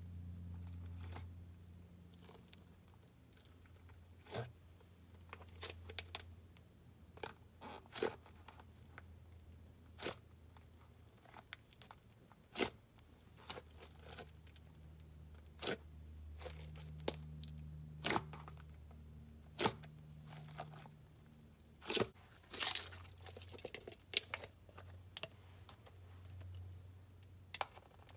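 Hands kneading and folding clear slime packed with fishbowl beads: irregular crunches and sharp clicking pops, some louder than others.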